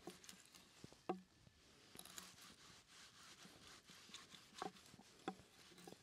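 Near silence with a faint crackle and a few soft knocks or clicks, the clearest about a second in and two more near the end.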